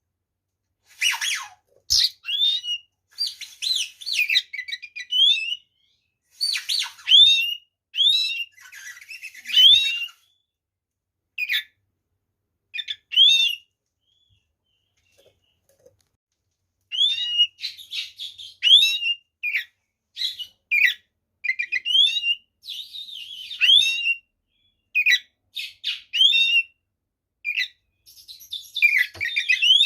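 Oriental magpie-robin (kacer) singing in bursts of varied whistled notes that sweep up and down, mixed with harsh rasping notes. The song breaks off for a few seconds in the middle, then resumes.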